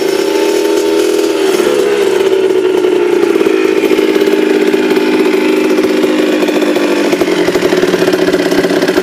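Freshly rebuilt KTM 65 two-stroke motocross engine running. The revs waver over the first two seconds, then hold at a steady pitch.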